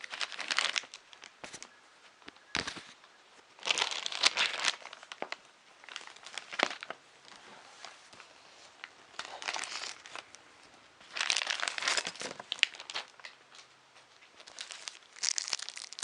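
Packaging being handled, crinkling and rustling in short bursts, about six times, with quiet gaps between.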